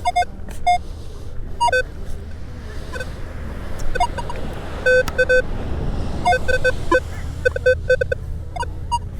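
Metal detector giving short target beeps at several different pitches, some low and some higher, many of them in quick runs of two or three, as it is swept over buried metal such as bottle caps. A steady low rumble runs underneath.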